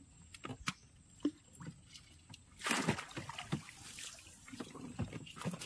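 Water sloshing and dripping at the side of a small boat as a crab line is hauled in by hand, with scattered knocks and clicks; the loudest splash comes a little under three seconds in.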